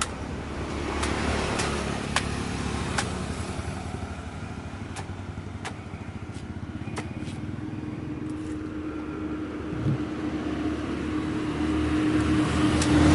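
Road traffic running by, with one vehicle's hum growing louder near the end, and sharp knife chops every second or so as a toddy palm fruit's husk is hacked open.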